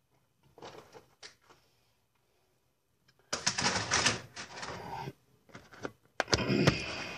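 Clattering and rattling of kitchen items being handled on a counter, in three bursts, the longest lasting about two seconds.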